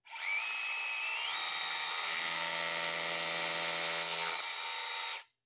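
DeWalt rotary drill boring a hole into concrete: a steady motor whine that steps up in pitch about a second in, runs for about five seconds, then stops.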